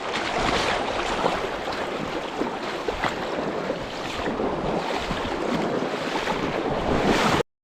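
Loud, steady rushing noise with wind buffeting the microphone; it cuts off abruptly near the end.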